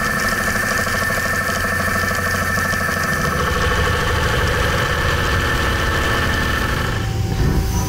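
CNC mill-turn lathe (DN Solutions PUMA SMX3100ST) turning a cast iron brake rotor. The cut gives a loud, steady machining noise with a hum of several pitches, and the higher hum drops away near the end.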